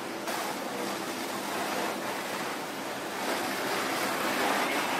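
Steady rushing hiss of water from fire hoses spraying and running, growing louder from about three seconds in.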